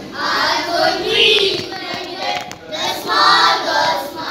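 A group of schoolboys singing together in unison, in phrases with short breaks between them.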